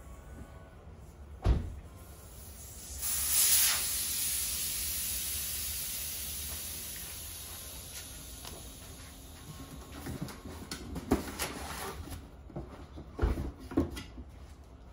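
A sharp knock, then air rushing out of a tubeless mountain-bike tire with a loud hiss that fades away over about five seconds as the tire is let down to unseat one bead. Later, a few knocks and clatters as the wheel and tire are handled.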